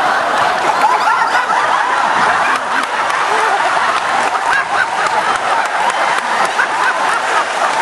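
Audience laughing and chattering, many voices overlapping at once.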